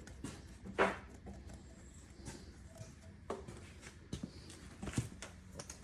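A few scattered light clicks and knocks from handling a small-engine cylinder head and parts on the bench, the sharpest about a second in.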